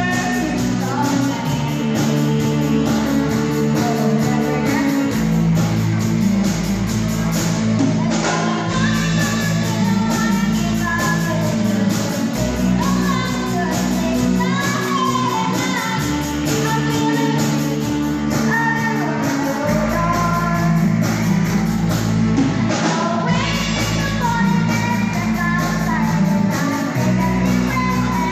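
Live rock song performed by children: a girl singing lead into a microphone over amplified electric guitars and a keyboard.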